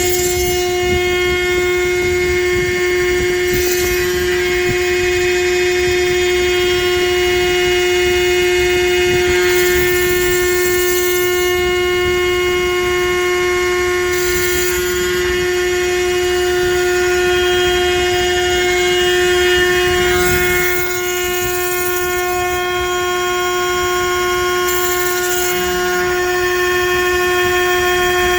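Large CNC router's spindle running with a steady, loud high-pitched whine. Short bursts of hiss come every few seconds.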